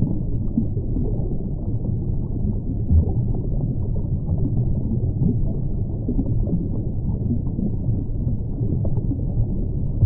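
Muffled underwater ambience: a steady low rumbling, churning water noise with almost nothing in the high range, and a brief louder thump about three seconds in.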